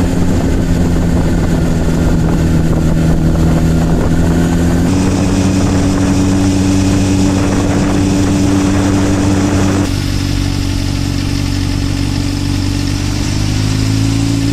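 Motorcycle engine running steadily at cruising speed while riding. Its note steps slightly in pitch about five and again about ten seconds in.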